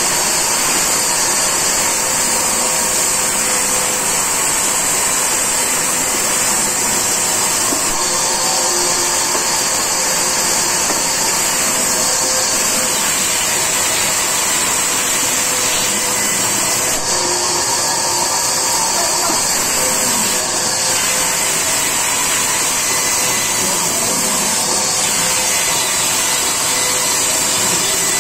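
Large sawmill band saw running steadily with its blade ripping lengthwise through a timber log: a continuous high-pitched whine and hiss.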